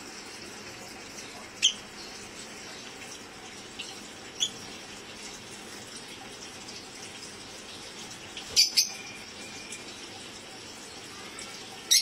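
A caged parakeet giving short, sharp, high chirps, about five of them, two in quick succession about two-thirds of the way through, over a steady hiss.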